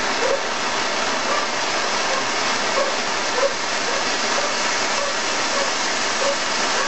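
A ground fountain firework (a Diamond Fountain) spraying sparks with a steady, loud hiss, with small crackles now and then.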